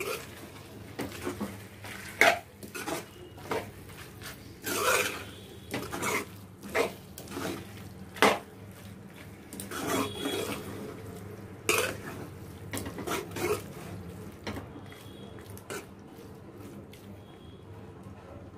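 A spatula scraping and knocking against a kadai while stirring a thick chicken curry, in irregular strokes that thin out over the last few seconds.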